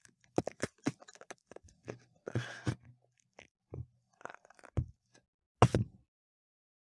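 A knife cutting into the rock-hard crust of a baked gluten-free bread roll on a wooden chopping board: a run of short crackles and crunches with a longer sawing stroke, and a sharper crack near the end.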